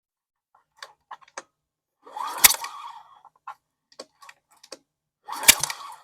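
Lawn mower engine turned over twice by its pull-start cord with the spark plug removed and a finger over the plug hole: each pull gives a loud rushing puff of air forced out of the cylinder, the sign that the engine has compression. Light clicks come between the two pulls.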